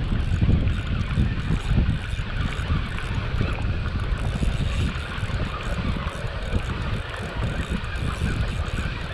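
Wind buffeting the microphone in a gusting low rumble.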